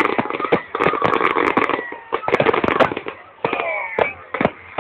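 Aerial fireworks exploding: a rapid, dense run of crackling pops and bangs that thins to a few separate bangs after about two seconds, heard through a phone's microphone.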